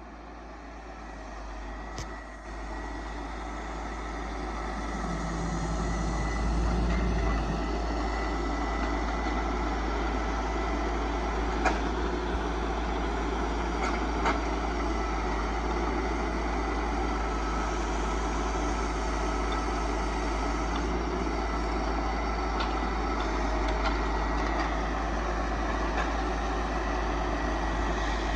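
Diesel engine of a self-loading logging truck running steadily, growing louder over the first few seconds and then holding. A few sharp knocks sound over it.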